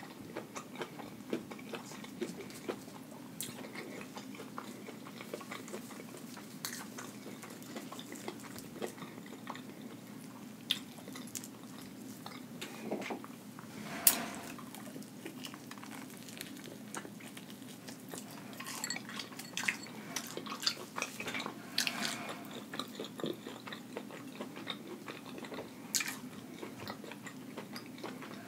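Close-miked chewing of crunchy Flamin' Hot Cheeto-crusted fried shrimp and chicken, with scattered sharp crunches and mouth clicks.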